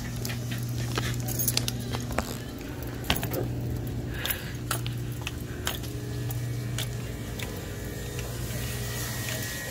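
Light clinks and rattles from a plastic hand-held shopping basket knocking about as it is carried, scattered irregularly, over a steady low hum.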